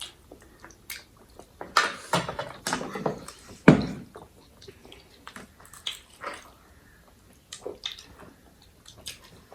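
Close-up eating sounds of a noodle and momo mukbang: chewing and mouth noises with scattered small clicks and taps, and one louder knock about four seconds in.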